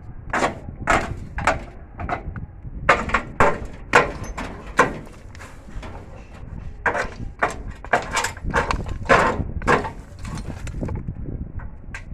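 Repeated sharp knocks or strikes, about two a second, in short runs of three or four with brief pauses between them.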